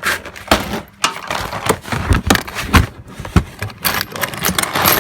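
Loose metal rivets clinking and rattling as they are rummaged through, a busy run of sharp clicks and knocks.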